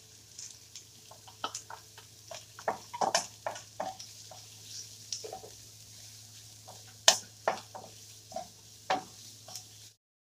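Wooden spatula stirring and knocking against a non-stick wok of frying onion, garlic and bell pepper, with a faint sizzle. The knocks are irregular, the loudest about seven seconds in, and the sound cuts off just before the end.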